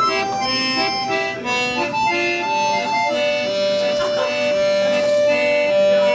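Music: a melody of short, evenly paced notes, then one long held note from about three seconds in.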